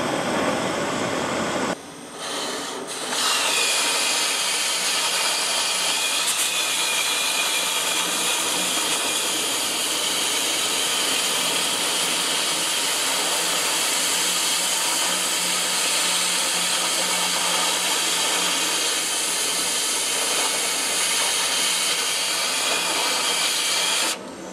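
Oxy-fuel cutting torch hissing as it burns a hole through a steel frame rail. After a brief break about two seconds in, the cutting jet runs as a steady, louder hiss, then cuts off abruptly near the end.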